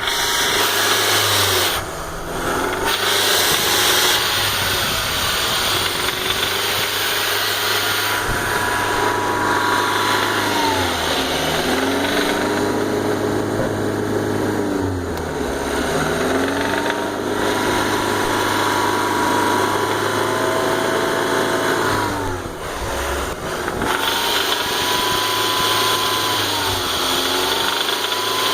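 BMW M43 1.9-litre four-cylinder engine running, its pitch shifting a few times as the revs change, with a knocking noise that remains despite a new timing chain, guides, tensioners and hydraulic lifters.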